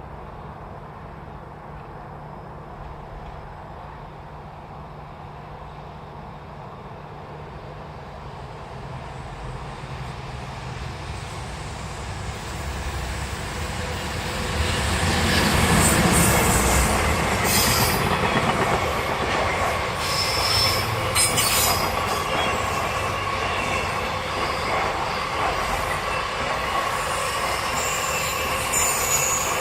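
A train approaching and passing close by: its noise builds over the first half, then the wheels clack over the rail joints and squeal for the rest of the pass.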